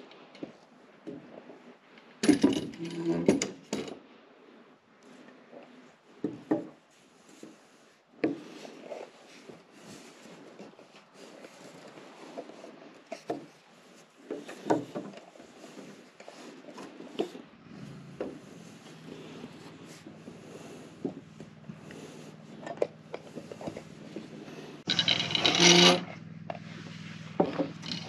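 Hands-on carpentry handling of wooden purlins and metal bar clamps: scattered knocks, clicks, rubbing of wood and small metallic jingles, with a louder clatter near the end. A low steady hum comes in about two-thirds of the way through.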